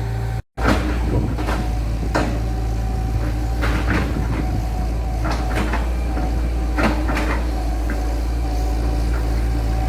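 Engine of heavy road-construction machinery running steadily, with repeated metallic clanks and knocks throughout.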